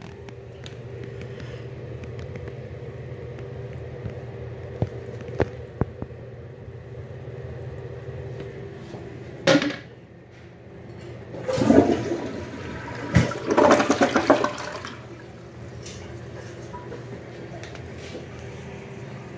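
Tank toilet flushing: a short clunk about halfway through, then water rushes and gurgles loudly down the bowl for a few seconds before settling to a quieter steady run.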